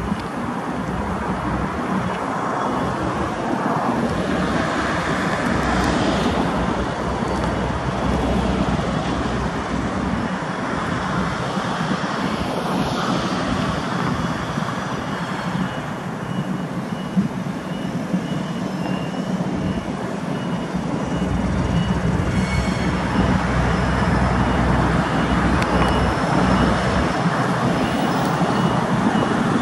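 Small diesel shunting locomotive running with a steady low engine note as it hauls container wagons slowly along, mixed with road traffic noise. It grows louder in the last third as it draws near. A faint high beeping joins about halfway through.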